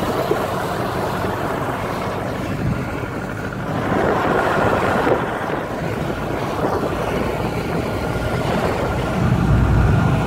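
Steady road and wind noise from a moving vehicle on a highway, with wind buffeting the microphone. A heavier low rumble swells near the end.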